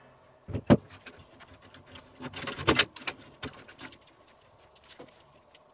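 Scattered clicks and light knocks of a PC case being laid on its side and loose cables being handled inside it. The sharpest knock comes just under a second in, with a cluster of them around two and a half to three seconds.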